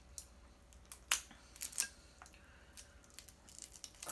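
Cooked snow crab leg shell cracking and snapping as it is broken apart by hand to get the meat out: a scattering of separate sharp cracks, the loudest about a second in.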